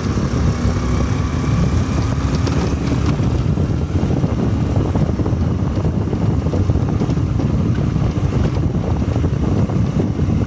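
Riding a motor scooter along a road: wind rushing steadily over the microphone, with the scooter's engine running underneath.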